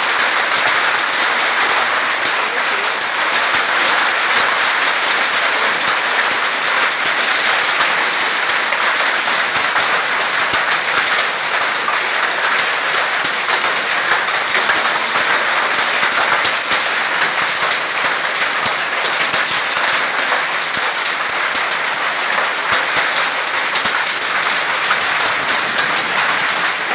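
Heavy rain mixed with hailstones falling on corrugated metal roofing: a dense, steady, loud rush of countless small hits that keeps up without a break.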